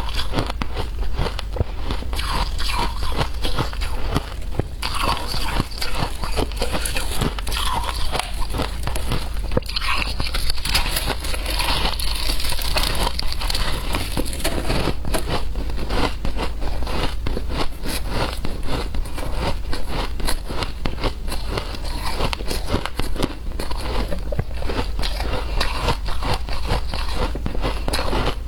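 Mouthfuls of shaved ice being bitten and chewed: a continuous run of dense, fast crunching and crackling.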